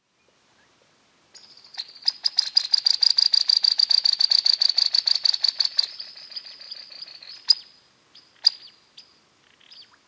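A bird calling: a fast, even trill of high, sharp notes, about eight a second for roughly four seconds, then a few separate sharp single calls near the end.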